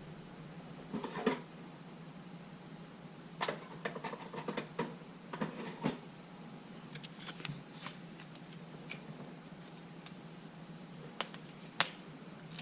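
Scattered light clicks and taps of small parts and hand tools being handled on a workbench, over a faint steady hum.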